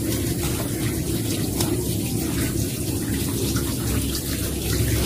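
Water running steadily from a hose nozzle, with a hand swishing and rinsing wild mushrooms in a pot of water.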